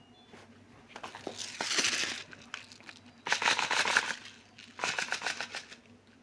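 Three bursts of crinkly rustling made of rapid clicks, about a second each: finches moving and fluttering about in their cage.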